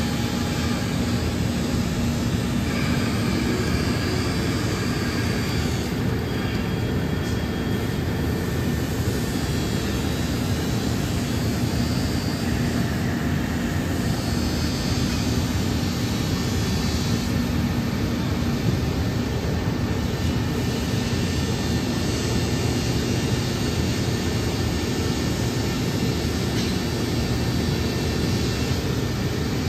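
Haas ST-35Y CNC lathe running with flood coolant spraying against its door window: a steady rushing noise under a low, even hum.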